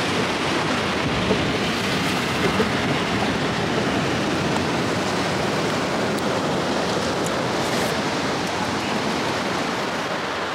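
Steady noise of ocean surf breaking and washing against a rock jetty.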